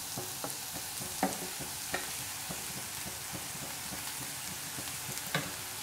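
Rice and vegetables sizzling in a frying pan over high heat while being stirred and tossed with a spatula: a steady frying hiss with a few irregular light knocks and scrapes of the spatula against the pan.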